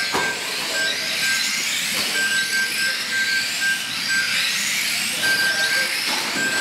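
A pack of 1/12th-scale electric radio-controlled cars racing on carpet: many high-pitched motor whines overlapping, each rising and falling as the cars accelerate and brake through the corners. Short beeps at one steady pitch repeat irregularly throughout.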